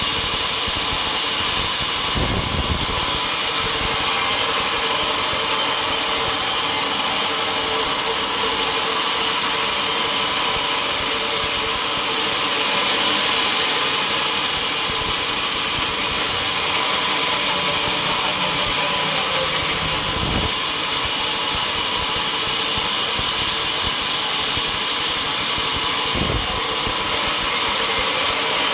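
Sawmill saw running steadily through wood, a loud continuous machine noise with a steady hum. Three short low thumps break in, about two seconds in and twice near the end.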